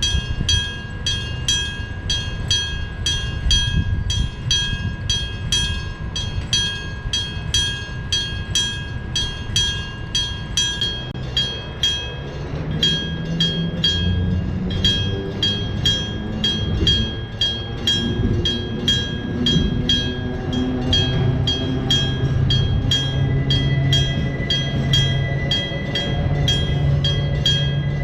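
Electric-bell railway level crossing ringing with even, rapid strikes, about two and a half a second, over a passing train with nose-suspended traction motors. From about twelve seconds in, the motor whine rises in pitch as the train accelerates.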